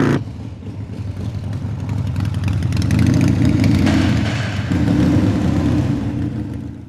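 Harley-Davidson Fat Boy's V-twin motorcycle engine revving and pulling away, growing louder over the first few seconds as the bike rides down into a parking garage.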